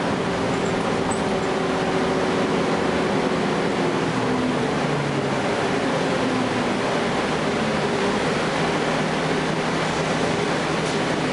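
Cummins ISL9 inline-six diesel engine of a Gillig Low Floor transit bus running under way, heard from inside the passenger cabin as a steady drone mixed with road noise, its pitch shifting a little about four seconds in.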